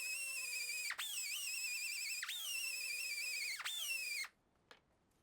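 Die grinder with a 180 grit sanding pad running at a high whine while sanding a rusty steel latch plate. Its pitch dips and recovers three times, and it shuts off about four seconds in.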